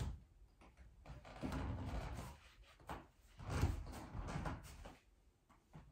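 Bare feet stepping and turning on a hardwood floor, dull thuds and knocks in two spells of about a second each.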